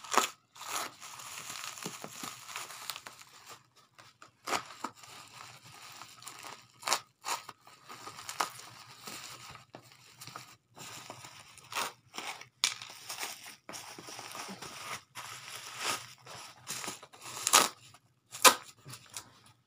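Plastic parcel wrapping and packing tape being torn and crumpled by hand: irregular crinkling broken by many sharp rips.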